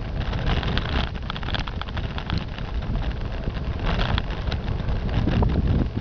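A car driving slowly, its low road and engine rumble heard from inside, with wind buffeting and crackling on the microphone.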